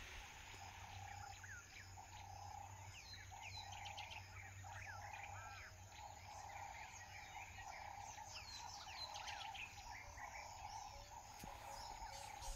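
Faint open-air ambience of many small birds chirping and calling in short rising and falling notes, over a steady pulsing insect drone and a low rumble.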